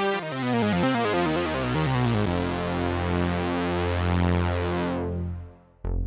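Dreadbox Nymphes analog polyphonic synthesizer played on keys: a quick run of notes, then a held low chord that pulses and fades out near the end, with new notes starting just as it ends.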